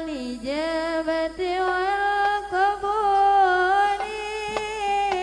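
Music: a single melodic line of long held notes that slide smoothly from pitch to pitch, with no drums yet.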